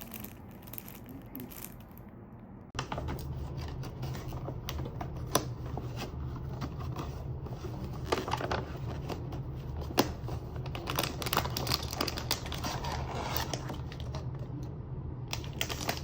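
Gift packaging being handled and opened, with irregular clicks, taps and crinkling. A steady low hum comes in about three seconds in.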